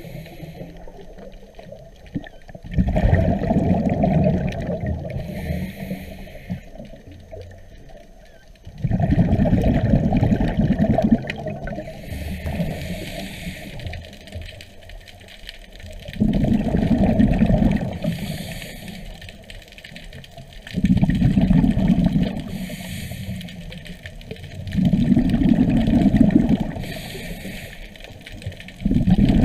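Scuba diver breathing through a regulator, heard underwater: bursts of exhaled bubbles rumbling every four to six seconds, with a fainter hiss of inhalation between them.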